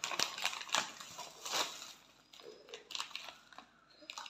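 Plastic drink-powder pouch crinkling and rustling as a spoon is dug into it to scoop out powder, in a run of short crackles that is busiest in the first two seconds and thins out after.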